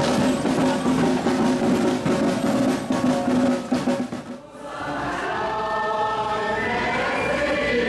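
Band music with rapid drumming over steady held notes, then, after a brief drop about four and a half seconds in, a choir singing.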